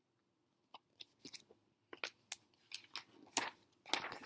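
Paper pages of a picture book being handled and turned close to the microphone: a run of short, crisp crackles and rustles that grows busier and loudest near the end.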